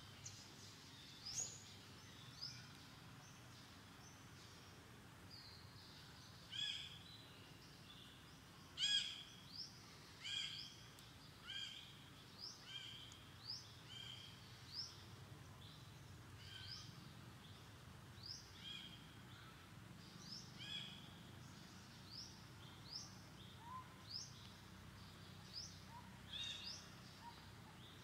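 Wild birds singing: short, high, rising chirps repeat about once a second, some fuller and louder notes bunched between about six and fifteen seconds in, over faint outdoor background noise.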